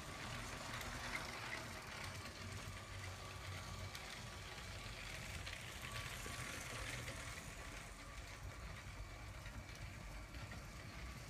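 Lego City cargo train running around its plastic track, its small motor and wheels making a steady, faint mechanical whir and rattle.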